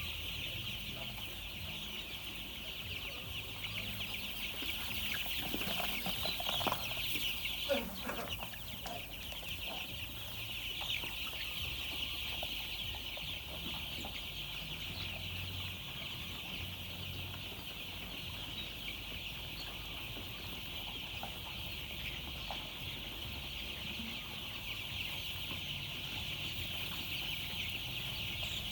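A flock of chicks peeping continuously, a dense chorus of high chirps, with a few louder, lower calls between about five and eight seconds in.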